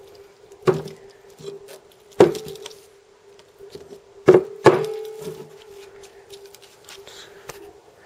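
Microwave oven transformers knocking and thudding as they are handled and set down on a table: four knocks, the last two in quick succession just past halfway, over a faint steady hum.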